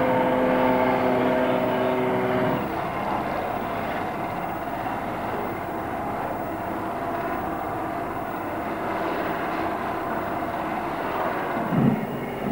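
Propeller-driven aircraft engine droning steadily. Its steady tone drops away about two and a half seconds in, leaving a rushing noise, with a couple of low thumps near the end.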